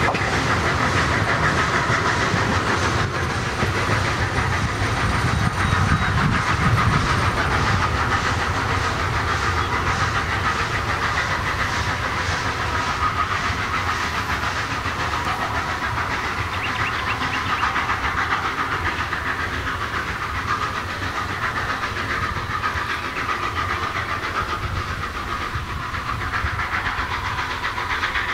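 FS class 741 steam locomotive 741.120, a Franco-Crosti 2-8-0, pulling its train of old coaches away: steam exhaust and hiss mixed with the wheels running on the rails, with a steady high ring throughout. The sound fades slowly as the train draws off.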